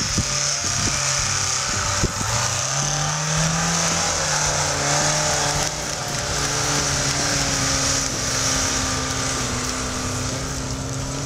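Lada Niva's engine pulling hard through deep snow, the revs rising a couple of seconds in and then holding steady, with a sharp knock about two seconds in.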